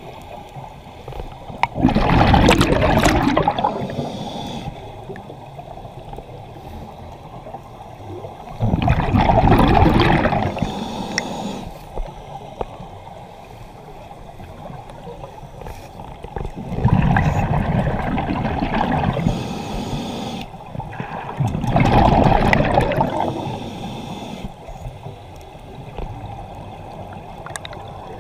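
Scuba regulator exhaling, recorded underwater: four bubbling surges of a few seconds each, one with every breath and several seconds apart, with a quieter hiss between them.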